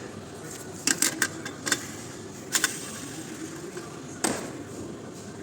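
Clutch parts being handled, giving a few sharp metallic clicks and knocks, the loudest about four seconds in.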